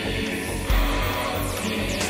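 Dance-pop music from a 2001 dance single, with a heavy bass hit about two-thirds of a second in.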